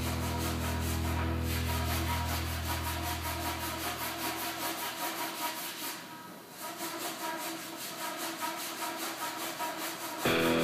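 Dried body-filler putty on a car fender being block-sanded by hand with 80-grit paper: steady back-and-forth rubbing strokes. Music comes in just before the end.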